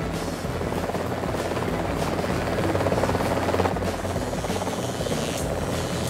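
Helicopter rotor and engine sound effect, a steady fast chopping that swells slightly a little past halfway.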